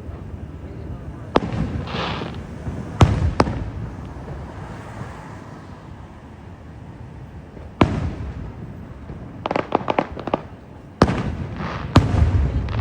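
Fireworks display: aerial shells bursting in sharp bangs, each trailing off in a rumbling echo, about six in all. A quick run of small crackling pops comes near the middle, and a hiss follows some of the bursts.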